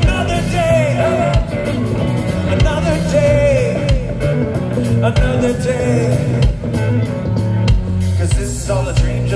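Live rock band playing: electric guitars, bass guitar and drums. A lead melody bends up and down in pitch over a steady drum beat.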